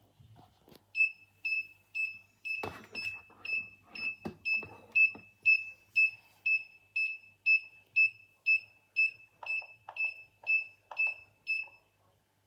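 Alarm system's buzzer beeping a steady high tone about twice a second, starting about a second in and stopping near the end. A few knocks and rustles sound over the first few seconds of beeping.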